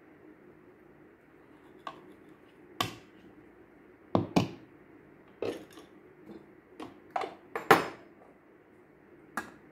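Kitchenware being handled and set down on a countertop: a plastic funnel, glass jars and a metal spoon knock and clink about ten times at irregular intervals, the loudest just before the end. A faint steady hum runs underneath.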